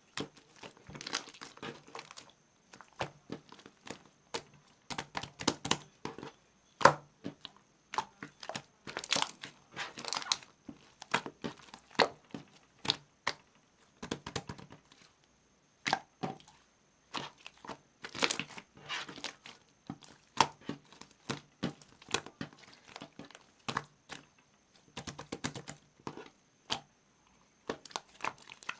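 Slime being squished, pressed and stretched by hand, giving irregular sticky clicks, pops and crackles that come in clusters with short pauses between.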